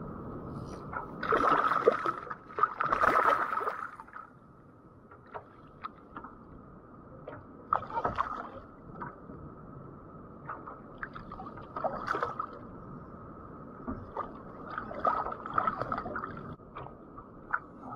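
Sea water sloshing and splashing against the side of a fishing kayak as a hooked snapper is drawn up alongside. Two louder splashes come in the first few seconds, then scattered small slaps and drips.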